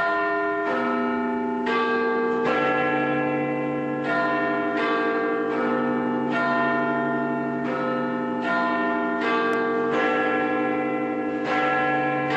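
Church bells pealing, several bells struck one after another roughly once a second, their tones overlapping and ringing on. The peal starts suddenly.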